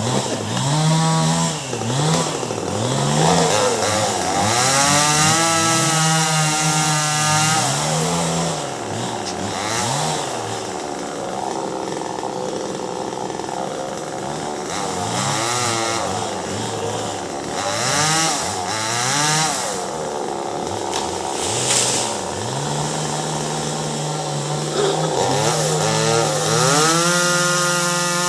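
Two-stroke chainsaw cutting melinjo wood. It revs up and drops back again and again, and is held at high revs for a few seconds about a third of the way in and again near the end.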